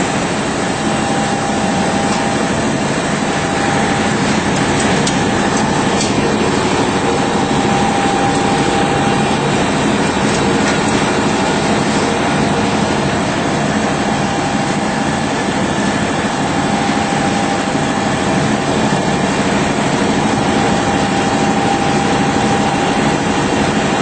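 ERNST PLUTON plate deburring machine running, a loud, steady mechanical noise with a constant hum.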